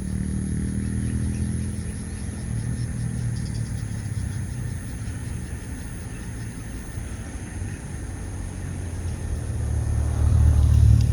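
Low, steady rumble of a motor engine, growing louder near the end as it comes closer.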